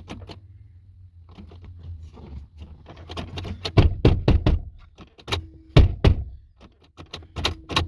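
Repeated clicks and thunks of a 2008 Toyota Sienna's sliding-door inside handle being pulled and the door latch knocking, loudest about four and six seconds in. The latch is not releasing: the door sticks shut from inside.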